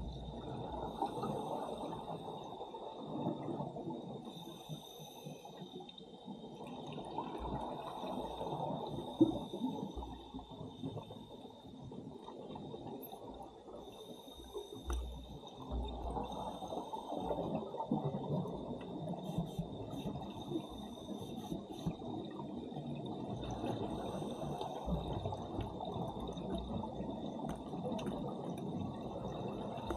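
Underwater scuba breathing: bubbles from a diver's regulator exhaust rush and gurgle in surges every few seconds, with a faint steady high whine underneath.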